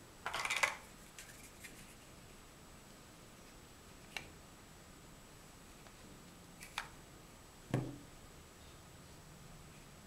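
Large plastic Mega Bloks First Builders bricks clicking and clattering as they are handled and pressed together: a short rattle of clicks at the start, then a few single clicks and a duller knock spread over the rest.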